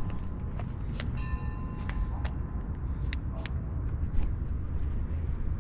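Wind rumbling on the microphone, with scattered light clicks and taps. About a second in, a brief steady high tone sounds for under a second.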